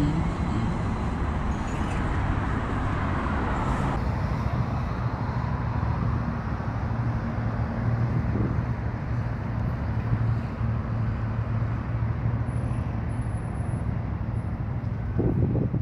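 Steady low hum and rumble of a Stadler FLIRT (Sm5) electric commuter train standing at the platform, with a short thump near the end.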